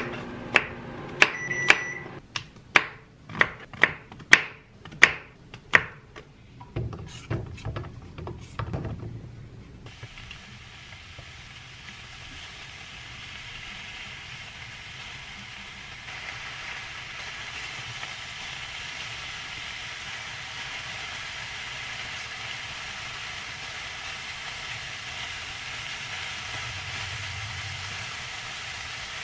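Serrated knife slicing white button mushrooms on a wooden cutting board, about a dozen knocks of the blade through onto the board in the first six seconds. From about ten seconds in, the sliced mushrooms sizzle steadily in a frying pan, a little louder from about sixteen seconds in.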